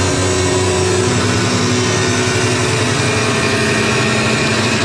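Live experimental noise music through a PA: a loud, dense, steady drone with a low hum and a buzzing texture over it.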